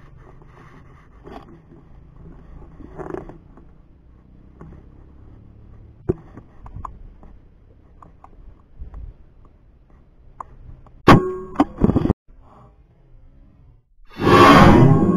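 Air rifle shot at a spotted dove: a loud burst near the end, after a quiet stretch of low background noise with small clicks. About eleven seconds in there are two loud sharp sounds with a ringing tone that cut off abruptly.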